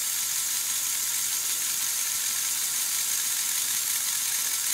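LEGO Technic electric motors running with a steady whir and high hiss: one motor drives a crankshaft that rocks a set of switches, pulsing power to a second motor running in reverse. The second motor's speed is set by those switches opening and closing very rapidly.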